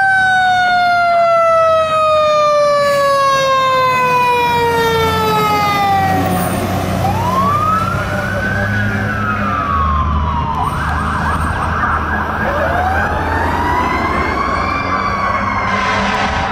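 Fire engine siren going by: a long tone falling slowly in pitch for about six seconds, then a wail sweeping up and down in pitch, over the truck's low engine rumble.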